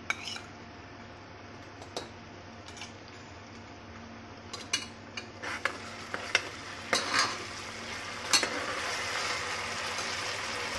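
A metal ladle stirs and scrapes chopped onion, green chillies, whole spices and ginger-garlic paste frying in oil in an aluminium pressure cooker, knocking now and then against the pot. The frying sizzle grows louder over the last couple of seconds.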